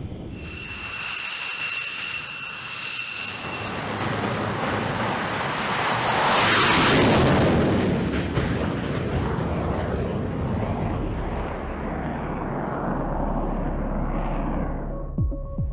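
Jet engine of an X-47B tailless drone giving a steady high whine, then a roar that swells to its loudest about seven seconds in as the drone is catapult-launched and passes, before fading away.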